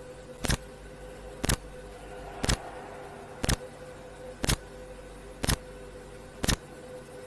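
Countdown sound effect: a sharp tick once a second, seven in all, over a steady low hum.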